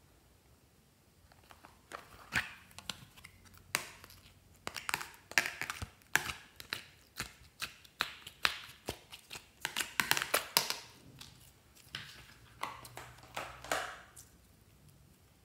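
Green slime squeezed and pulled by hand out of a plastic container, giving a run of irregular sticky pops and clicks. They start about a second and a half in, are densest in the middle, and stop shortly before the end.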